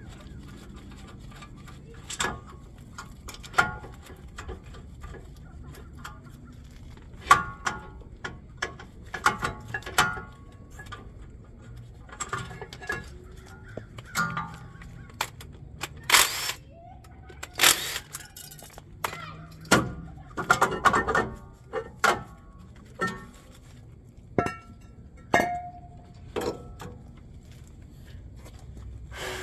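Metal tools and parts being handled at work on a car: an irregular run of sharp clanks and clinks, some ringing briefly, over a low steady hum.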